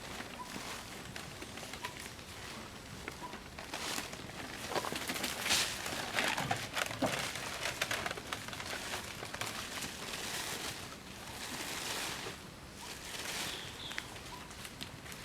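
Outdoor ambience: irregular rustling and scuffling noises that swell in the middle, with a short bird note repeated at an even pace near the start and again near the end.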